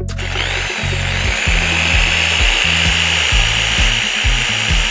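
Tibay TE5300 corded electric drill switched on: its motor spins up with a rising whine over the first half-second, then runs steadily at full speed.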